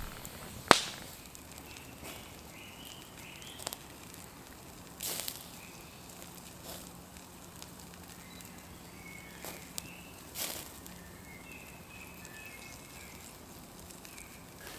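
Wood campfire crackling, with about six sharp pops spread through, the loudest about a second in.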